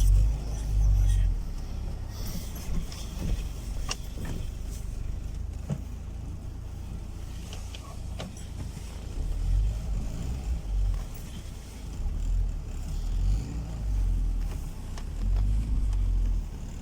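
Car driving along a forest track: a low, uneven rumble of engine and tyres with scattered knocks and rattles.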